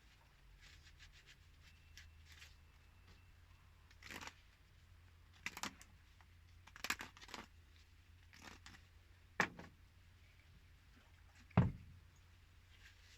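Plumbing fittings and parts being handled: scattered clicks, knocks and rustles at irregular intervals, the loudest a dull knock near the end.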